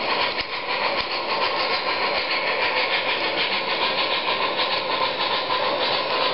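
MTH RailKing O-gauge model of an N&W Y6b steam locomotive running on three-rail track: its on-board sound system plays a fast, even steam chuff over the noise of its wheels and motor, with a steady tone underneath.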